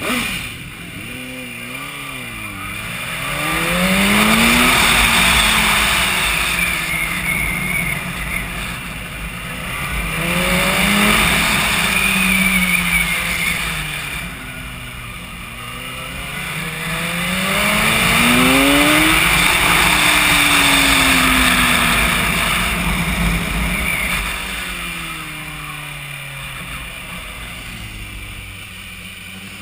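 Sport motorcycle engine pulling away and accelerating, its pitch rising and falling several times as the rider works the throttle, with steady wind rush on the microphone.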